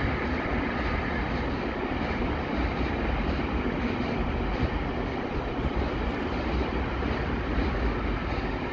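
A train running past on the rails, a steady, even noise of wheels and cars with no break.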